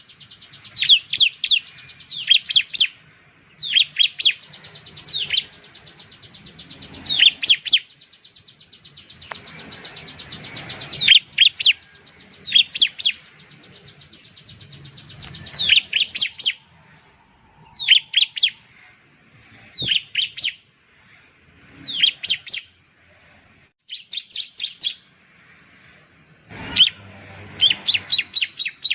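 Bar-winged prinia (ciblek) singing: loud phrases of quick, high, down-slurred notes over a fast, even ticking trill. In the second half it comes in shorter separate phrases with brief pauses between them.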